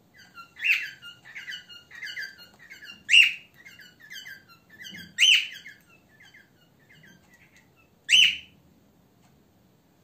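Cockatiels chirping: a quick run of short chirps, broken by four louder calls about a second in, at three seconds, at five seconds and near the end.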